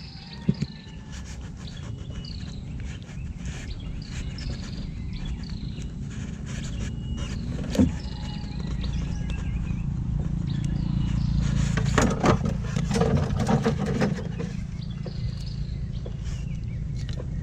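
A small boat's motor running steadily, with short high chirping calls repeating over it. A sharp knock comes about eight seconds in, and a cluster of knocks and splashes a few seconds later, from the net and fish being handled.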